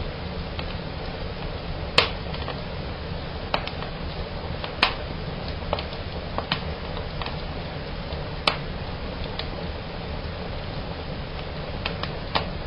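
Fire in a fireplace crackling, with sharp snaps at irregular intervals over a steady low rumble. The loudest pops come about two, five and eight and a half seconds in.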